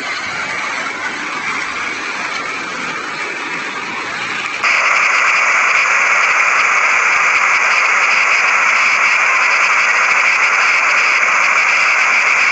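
Steady rushing noise of a fast-flowing flood torrent and rain. About four and a half seconds in it suddenly gets louder and brighter, then holds steady.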